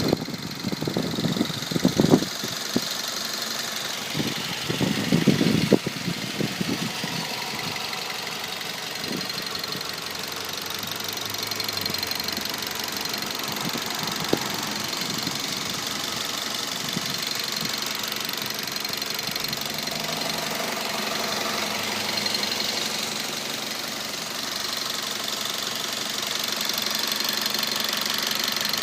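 Mazda 3 2.0 petrol engine running with a knock coming from the engine. There are several louder, irregular bursts in the first few seconds and one sharp click about halfway through.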